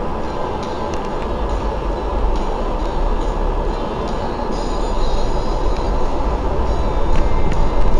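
Double-decker bus running, heard from inside on the top deck: a steady low engine rumble and road noise with scattered light rattles and clicks, growing louder over the last few seconds.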